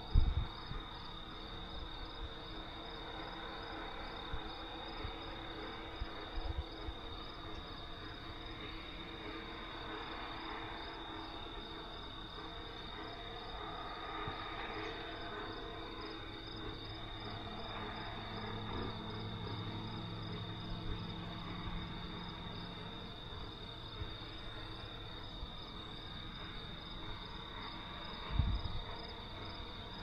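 Crickets chirping steadily: a continuous high trill with an evenly pulsing chirp above it. There is a brief low thump at the very start and another near the end, and a faint low hum for a few seconds past the middle.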